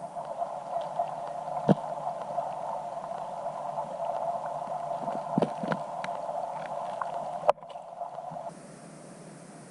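Underwater recording of a steady whirring hum, with a few sharp knocks scattered through it and a loud knock about seven and a half seconds in. The hum cuts off suddenly about eight and a half seconds in.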